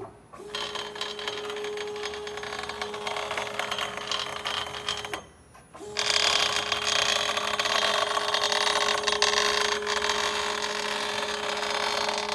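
Zenbot CNC machine running with its Hitachi (Metabo) router spindle giving a steady whine under a loud rattling, grinding mechanical noise. It stops briefly about five seconds in, then resumes louder. The owners take the noise for a bearing acting up.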